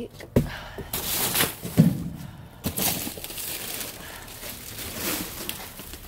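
Plastic wrap and cardboard rustling and crinkling as rubbish is shifted about inside a dumpster, with a sharp knock just after the start and a few sudden bumps.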